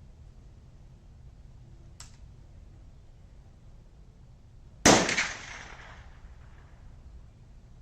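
Thompson Center Impact inline muzzleloader misfiring: a faint click about two seconds in, then a single sharp pop of the primer going off without firing the main charge, fading over about a second.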